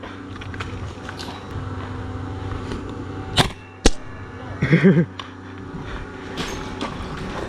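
Two sharp airsoft cracks about half a second apart, the second the sharper, over a steady background hum. A short vocal sound follows about five seconds in.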